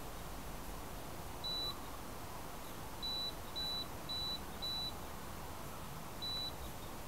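Short, high electronic beeps from the downed FPV250 quadcopter's electronics, all at one pitch: a single beep, then four in a row about half a second apart, then one more near the end. A faint steady hiss lies under them.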